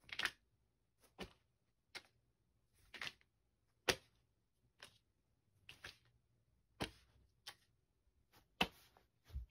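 Faint, short clicks, about one a second and not quite evenly spaced, some doubled, against near silence.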